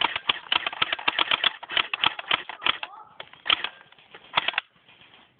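Airsoft guns firing in rapid full-auto bursts, a fast string of sharp clicks. The first string stops about three seconds in, followed by two short bursts.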